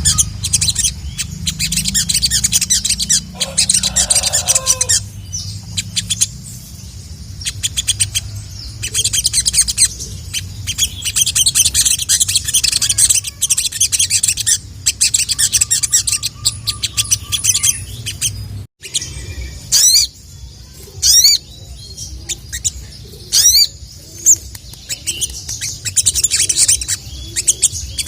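Sogon (sogok ontong) sunbird singing in rapid, high, dense chirps and trills, with a few sharp sweeping whistled notes in the second half. A low steady hum lies under it until a brief break about two-thirds of the way in.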